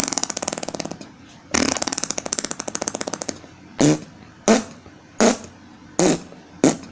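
Mouth-made sound effects: two bursts of fast rattling pulses, like a jackhammer or machine gun, then five separate short pops less than a second apart.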